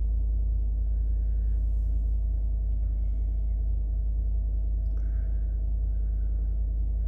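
Ford F-150's 5.0 L V8 idling steadily just after a cold start, heard from inside the cab: an even, low hum that runs smoothly, like new.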